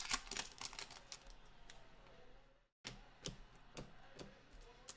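Foil trading-card pack crinkling as it is torn open, then cards clicking against each other as they are flipped through by hand. The sound drops out completely for a moment just before the middle.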